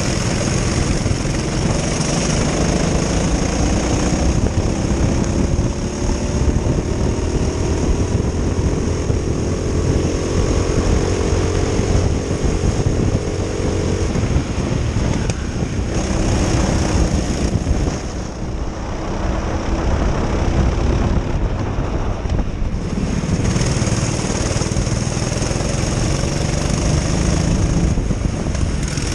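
Honda-engined racing kart's engine heard onboard at racing speed, its pitch climbing steadily along a straight and then dropping as the driver lifts for corners, several times over.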